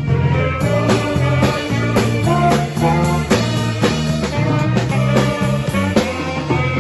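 Instrumental band music with a steady beat and a bass line.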